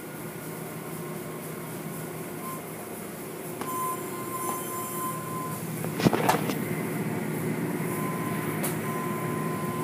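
Automatic car wash machinery running steadily, with its hanging cloth curtains and brushes working over a foam-covered car. A thin steady whine comes in about halfway, and a single sharp knock about six seconds in is the loudest sound.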